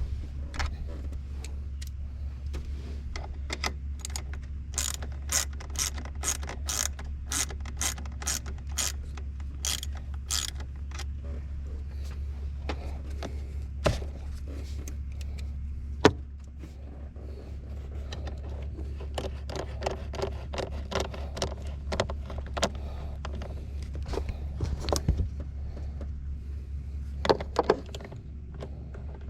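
Toyota 3.4 V6 running with a steady low drone, freshly tuned up with new spark plugs and wires. From about five to ten seconds in, a quick run of regular clicks comes about two a second, with a few scattered knocks around it.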